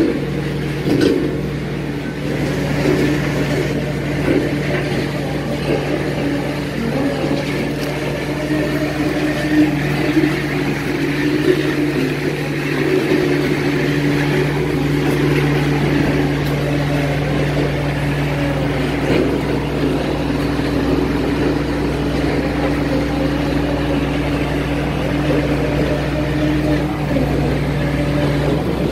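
Heavy machine's engine and hydraulics running at a steady, unchanging pitch while driving a hydraulic auger boring into rocky ground, with a few faint knocks.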